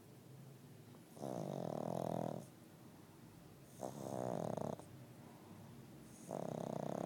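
Pug snoring, three long rasping snores about two and a half seconds apart, each lasting about a second, with quiet breaths between.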